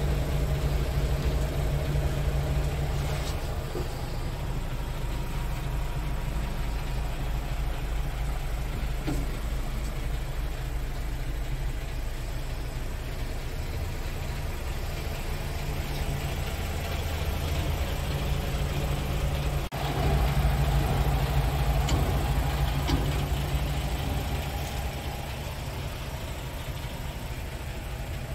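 Scania R520's 16-litre V8 diesel idling steadily, heard from inside the truck's cab as a low, even rumble.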